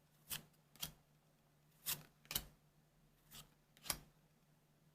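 Weiss Schwarz trading cards being handled one after another: six short, crisp card snaps, coming roughly in three pairs about half a second apart.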